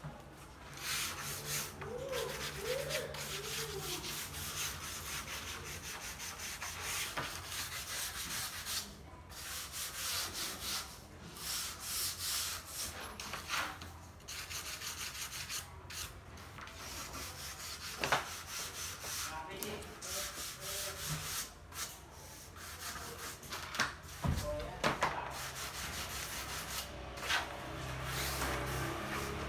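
A small sanding block rubbed by hand over wooden flooring planks, in irregular scraping strokes, with a few sharp wooden knocks as boards are handled.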